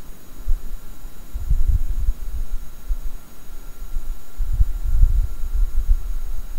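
Low rumble of wind buffeting the microphone, swelling and easing irregularly, strongest about a second and a half in and again from about four and a half seconds.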